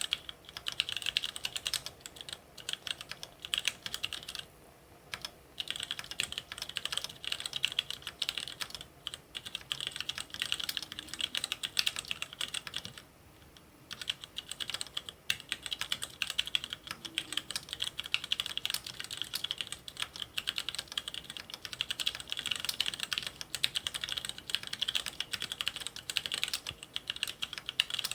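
Touch typing on an Infinity Ergodox mechanical keyboard with Gateron Red linear switches: a fast, steady stream of key clacks, with two short pauses, about five seconds in and about thirteen seconds in.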